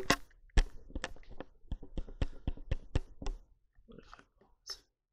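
Handheld camera being handled: a quick run of sharp clicks and taps, about three to four a second, as fingers work its buttons and body, then a few faint rustles near the end.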